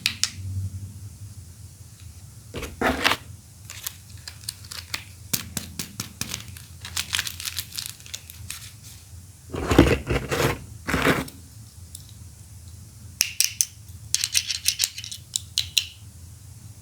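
Plastic Pokéball toy handled close to the microphone: irregular sharp clicks and taps, with heavier fumbling knocks at about three seconds and again around ten to eleven seconds, and a quick run of clicks near the end.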